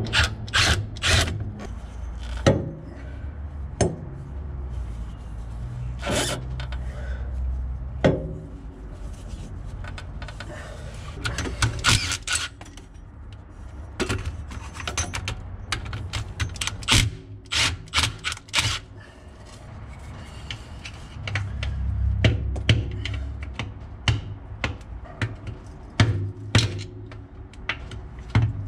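Irregular metallic clicks and knocks of tools working on the nuts of a Suzuki Vitara's rear differential housing as the centre is being unbolted, some in quick clusters, over a low steady hum.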